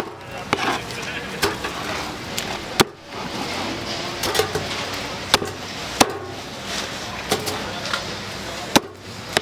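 Cleaver chopping jerk chicken on a cutting board: sharp single chops every second or so, three of them loudest, over background voices and street noise.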